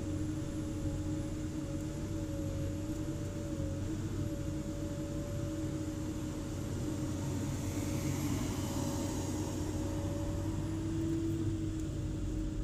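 Komatsu hydraulic excavator working under load, its engine running steadily with a continuous whine, as the bucket digs and lifts soil.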